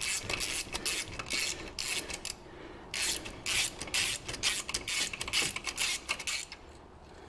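Socket ratchet clicking in quick runs as a 15 mm bolt is undone through two wobble extension bars. Two spells of clicking with a short pause between, stopping near the end.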